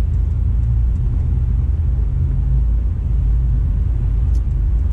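Steady low rumble of a car's engine and road noise inside the cabin while driving slowly in heavy traffic.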